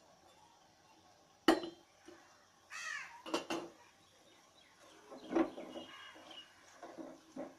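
A metal utensil clinking and knocking against a steel pan as syrup-soaked jilapi are handled, with several sharp clinks, the loudest about a second and a half in. A bird gives one short harsh call, falling in pitch, about three seconds in.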